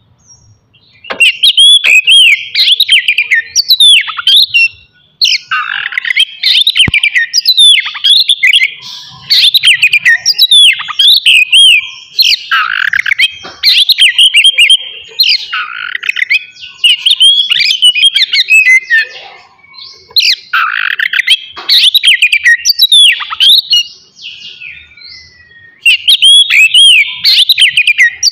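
Oriental magpie-robin (kacer) singing loudly in bursts of rapid, varied whistled phrases, with a few short pauses between them.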